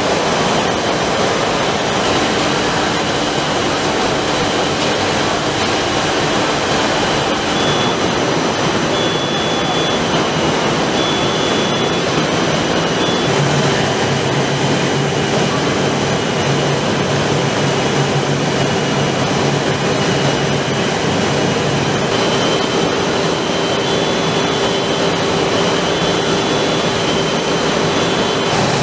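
Blown film extrusion line running: a loud, steady rush of machine noise and air with faint steady tones over it. A low hum comes in about halfway through and drops out a few seconds later.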